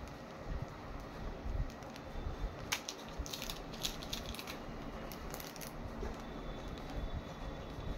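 Clear plastic rakhi sleeves crinkling and rustling in gloved hands, with a sharp click a little under three seconds in and a burst of crackles just after as one packet is swapped for another.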